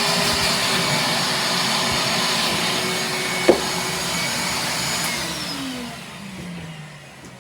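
Shop-Vac Ultra blower vac running steadily with a loud rushing of air, with one sharp knock about three and a half seconds in. About five seconds in the motor is switched off and winds down, its whine falling in pitch as the air noise fades.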